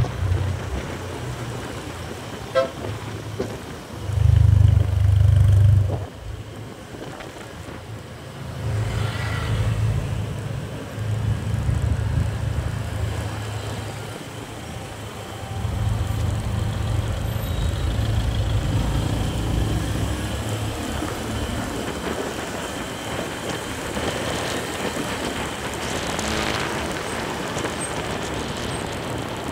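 Road traffic heard while riding among cars, with wind buffeting the microphone in low gusts that come and go, and a vehicle horn tooting briefly about nine seconds in.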